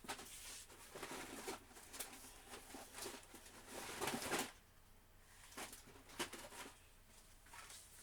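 Rummaging: things being handled and moved about, rustling and clicking in irregular bursts through the first half, then quieter with a few scattered clicks.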